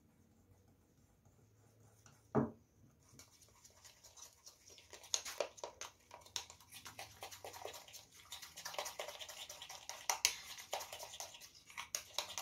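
Vanilla yogurt and powdered milk being stirred by hand with a utensil in a ceramic bowl. After a single knock about two seconds in, the utensil keeps up quick, uneven clicking and scraping against the bowl.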